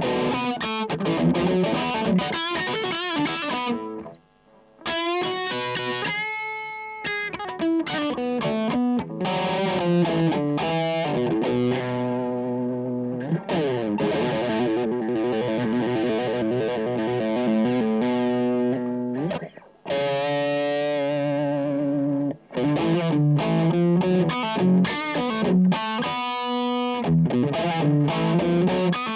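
Aria Pro II Les Paul-style electric guitar, amplified, played lead: fast picked runs with sustained notes in the middle and a sliding note partway through. The playing breaks off briefly twice, about four and twenty seconds in.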